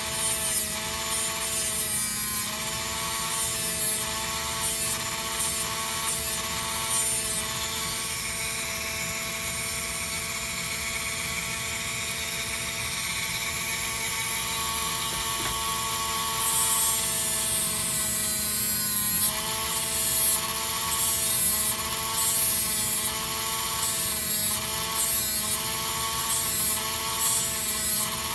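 Handheld rotary tool with a small cutting disc running with a steady whine that wavers in pitch as it loads, trimming wooden dowel plugs in the guitar's bridge-post holes, with repeated short bursts of grinding hiss as the disc bites the wood. The grinding gets louder about two-thirds of the way through.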